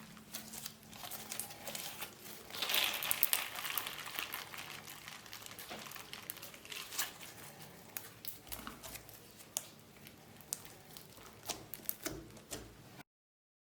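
Slime with beads mixed through it being squeezed and stretched by hand: sticky crackling with many small clicking pops, denser for a second or so about three seconds in. The sound cuts off suddenly near the end.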